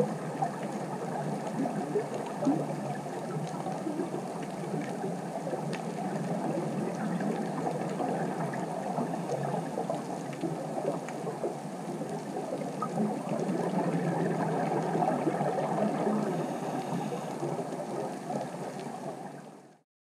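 Underwater ambience recorded beneath the sea: a steady, muffled rushing water noise with a few faint clicks, fading out near the end.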